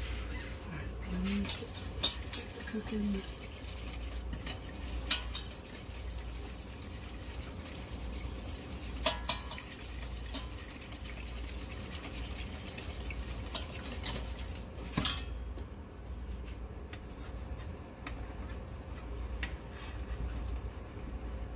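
Kitchen utensils stirring and clinking against stainless steel pots on the stovetop, in a saucepan of sauce and then a stockpot. Scattered sharp clinks ring out over a faint hiss, the loudest about nine seconds in and again around fifteen seconds in.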